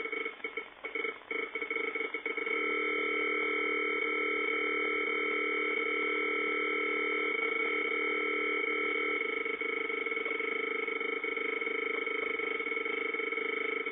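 REM-Pod paranormal field sensor sounding its electronic alarm, the sign that something has disturbed its field. It is a chord of steady tones that stutters on and off for the first couple of seconds, then holds continuously. Some of the lower tones drop out about nine seconds in.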